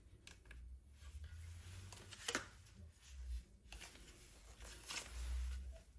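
Faint handling sounds from a partly dismantled Meta Quest 3 headset being moved about: a few light clicks and taps of plastic parts, with soft low bumps in between.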